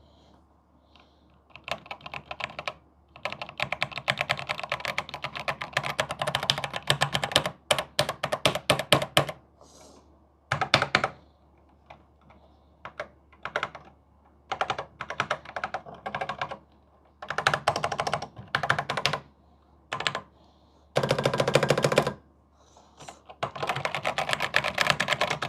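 Commodore 64 Ultimate keyboard being typed on: fast runs of key clicks lasting a few seconds each, broken by short pauses.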